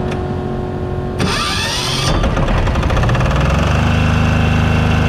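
A Powerzone PDG 8700 SS silent diesel generator is started with its key over a steady hum. About a second in the electric starter whirs briefly, then the engine fires with even pulses, picks up speed and settles into a steady run about four seconds in.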